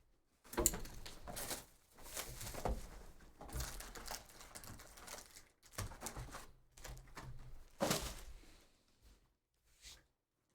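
Trading cards and crinkly pack wrappers being handled: irregular sliding, tapping and crinkling, dying away near the end.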